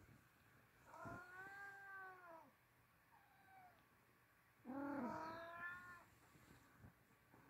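A cat giving three drawn-out, wailing meows: a long one about a second in, a short faint one, then the loudest about five seconds in.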